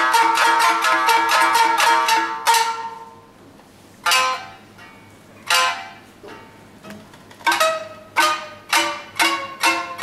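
Two shamisen playing the takinagashi ('waterfall') passage of nagauta: a fast run of repeated plucked notes stops about two and a half seconds in, then after a pause single notes return and come faster and faster toward the end.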